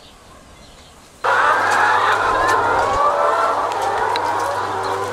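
Faint background, then about a second in a dense chorus of many caged laying hens clucking and cackling starts suddenly, over a steady low hum.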